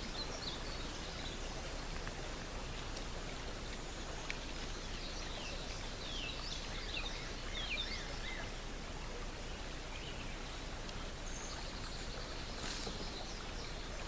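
Outdoor ambience: many short bird chirps over a steady background hiss, with a single sharp click near the end.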